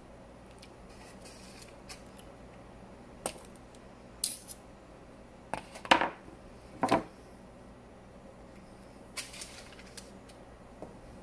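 Knife and fork scraping and tapping against a paper plate on a wooden counter while pork is cut and topped. There are a few short scrapes and clicks, the loudest about six seconds in.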